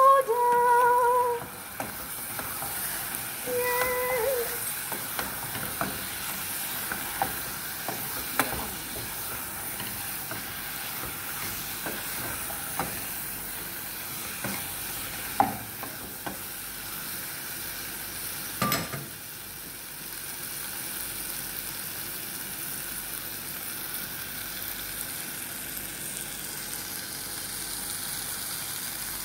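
Prawns frying in curry powder in a non-stick pot, sizzling steadily while a wooden spoon stirs them and knocks against the pot now and then. Two short pitched notes sound near the start and again about four seconds in.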